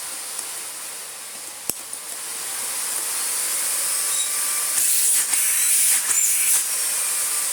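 Miele S5281 2200 W canister vacuum cleaner running, its motor and airflow a steady hiss that grows louder, with a single click about two seconds in. The machine now stays switched on: its worn power switch has been built up with a piece of yoghurt pot lid.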